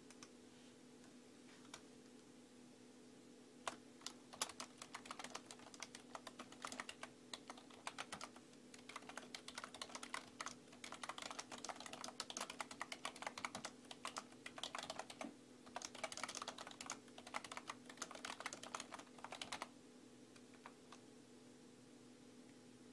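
Typing on a computer keyboard: quick runs of key clicks with short pauses, starting about four seconds in and stopping a few seconds before the end. A steady low hum runs underneath.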